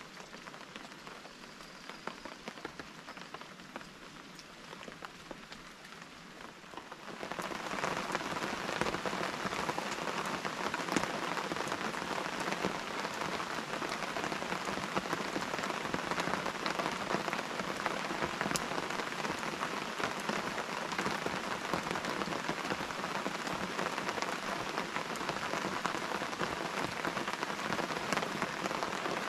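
Rain falling steadily in a dense patter of drops, growing suddenly heavier and louder about seven seconds in.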